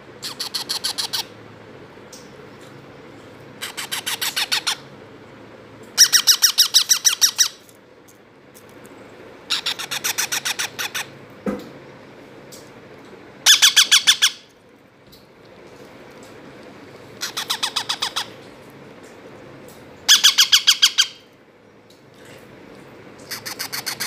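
Hand-fed parakeet chicks giving food-begging calls: bouts of rapid, harsh pulsed squawks about a second long, repeated every three to four seconds, eight bouts in all.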